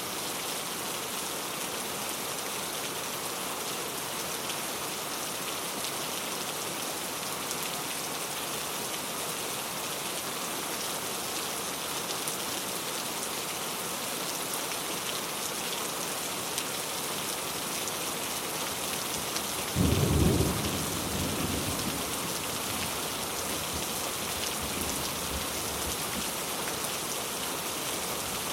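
Steady rain falling, an even hiss throughout. About two-thirds of the way through, a sudden crack of thunder breaks in low and loud, then rumbles away over a few seconds.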